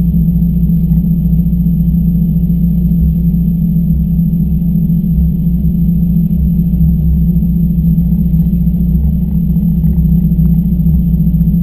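Race car engine idling, a steady low drone heard inside the stripped, caged cockpit.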